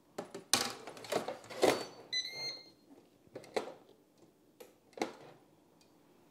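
Clunks and knocks of the Ninja Foodi 3-in-1 toaster's grill and panini press plate being lowered and closed by its handle, then a short electronic beep from the appliance a little after two seconds in, followed by a few more clicks.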